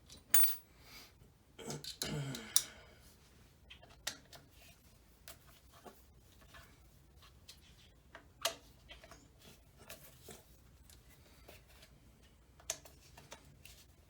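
Small hand tools clicking and tapping on an engine's bottom-cover screws as they are undone, with irregular sharp clicks every second or two.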